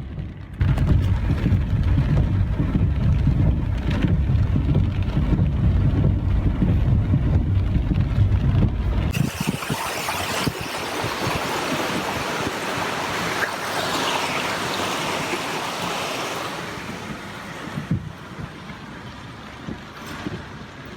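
A vehicle driving through deep floodwater: a heavy low rumble for the first nine seconds, then a loud rushing hiss of water that fades a few seconds before the end.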